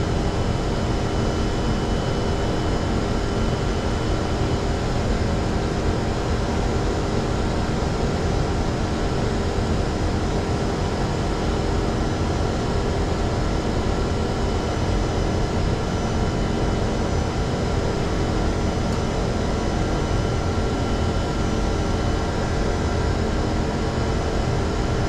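Singapore MRT electric train running at steady speed, heard from inside the car: a constant low rumble with a steady hum of motor tones and no change.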